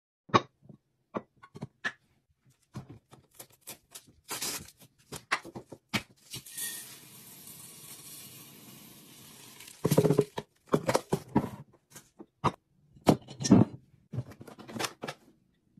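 Glass canister and lid clinking and knocking on a countertop, then Downy scent beads pouring into the glass canister as a steady rattling hiss for about four seconds. After that come more sharp knocks and clinks as a glass swing-top bottle and a plastic jug are handled and set down.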